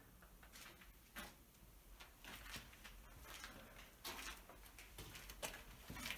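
Faint footsteps scuffing and crunching on a debris-strewn concrete floor, irregular, about one or two a second.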